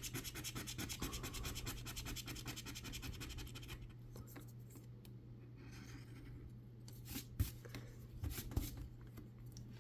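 A metal dog tag scratching the coating off a paper lottery scratch ticket in rapid back-and-forth strokes. The strokes stop about a third of the way in, followed by a few faint scrapes and taps.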